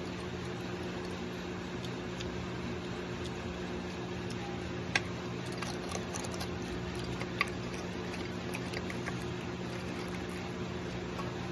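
A steady low hum, with light clicks of a metal spoon tapping and scraping a balut's eggshell in a ceramic egg cup; two sharper clicks come about five and seven seconds in.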